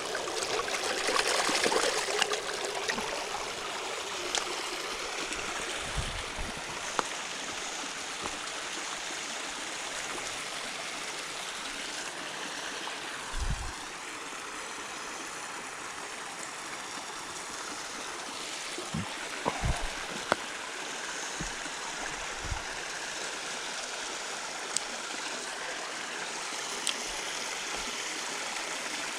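Small creek flowing steadily, with louder splashing in the first couple of seconds as a hand is rinsed in the water. A few dull low thumps here and there.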